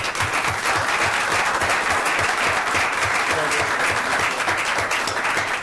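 A roomful of people applauding steadily, a dense patter of many hands clapping at once, greeting a police officer's completed oath of office.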